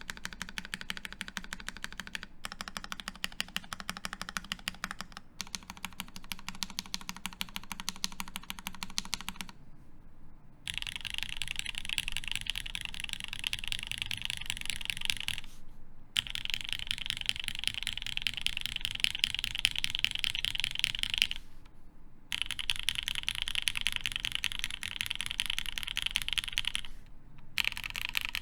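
Rapid typing on a mechanical keyboard with lubed Gateron Ink Black linear switches and GMK keycaps on a polycarbonate plate, a dense run of key clicks. After a short pause about ten seconds in, the keystrokes come louder and brighter, in runs broken by brief pauses.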